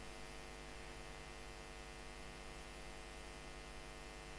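Steady low electrical mains hum with a faint buzz, unchanging throughout.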